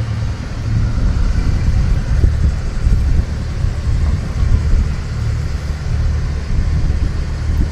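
Inboard diesel engine of a sailing yacht running steadily under way, a continuous low rumble.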